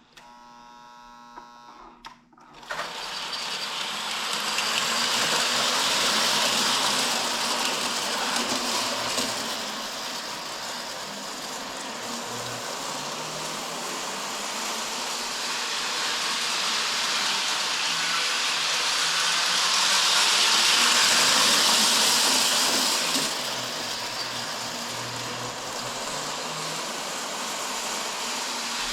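Lionel prewar standard gauge electric toy train running on the track: a steady whir of the motors and wheels on the rails that grows louder about 6 s in and again about 21 s in as it passes close, easing in between. A short buzzing tone comes before the train starts.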